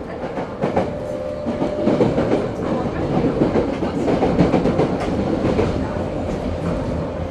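Eidan 03 series subway train running, heard from inside the car: a steady rumble of wheels on rail with scattered clacks over the rail joints. The running noise swells about two seconds in and eases off after about five seconds.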